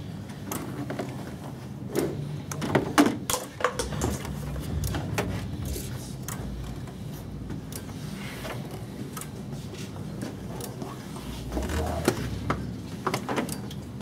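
Hands working through wiring harnesses and hoses in a car's engine bay: scattered knocks, taps and rustles, busiest about two to three and a half seconds in and again near the end, over a low, steady hum.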